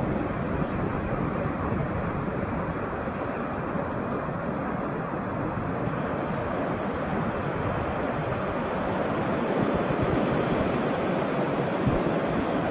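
Sea waves washing onto a shore in a steady rush of surf, with wind rumbling on the microphone. The surf swells slightly louder near the end.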